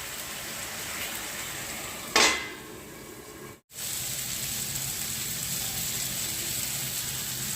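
Brinjal pieces in tamarind water sizzling steadily in a kadai on the stove. About two seconds in there is one sharp metal clank from the pan, and the sound cuts out for a moment shortly after.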